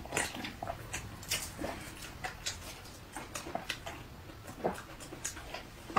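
Faint eating noises: irregular wet mouth smacks, clicks and slurps as noodle broth is drunk from a cup and meat is chewed off a bone.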